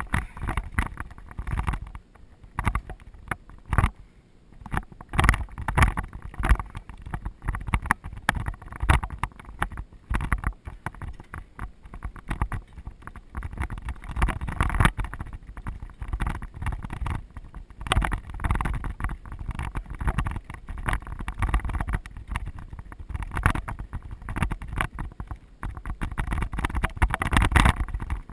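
Mountain bike rolling fast over rough dirt singletrack: frequent irregular rattles and knocks from the bike and the camera mount, over wind buffeting the camera's microphone.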